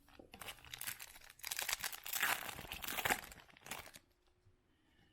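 A foil trading card pack wrapper being torn open and crinkled by hand for about four seconds, then stopping.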